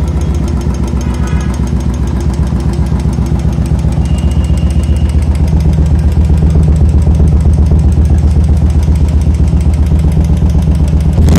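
Royal Enfield Classic 350's single-cylinder engine idling steadily through an aftermarket Megafone booster exhaust, with a glass-wool-packed silencer and a heat-wrapped header pipe, giving a deep, even thump. It grows a little louder in the second half.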